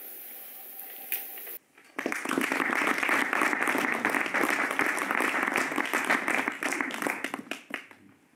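Audience applause, starting abruptly about two seconds in and dying away near the end, after a short stretch of steady room hiss with a faint hum.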